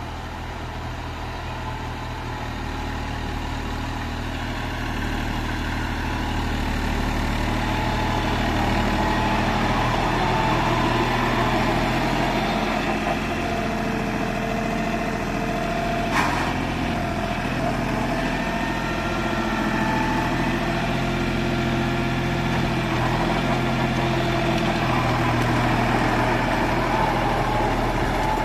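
John Deere E-series tractor's three-cylinder diesel engine running steadily under load while driving a rotavator through the soil, growing louder over the first several seconds as it comes close. A single short knock about halfway through.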